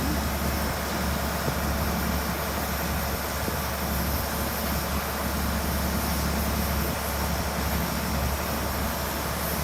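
Vehicle engine running steadily: a constant low drone with an even rush of noise over it.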